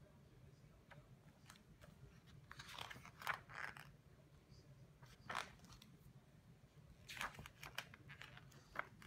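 Pages of a large glossy book being turned and handled: soft paper rustles and flicks, a cluster about three seconds in, another about five seconds in and more near the end, with small ticks of paper between.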